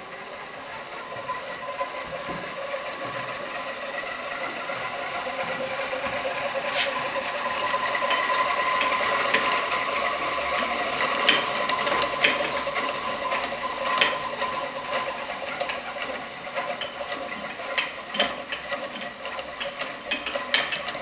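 Small electric motor spinning a Benham disc, whirring and rattling with a steady hum. It grows louder over the first dozen seconds, then eases slightly. Scattered sharp clicks come in the second half, more often near the end.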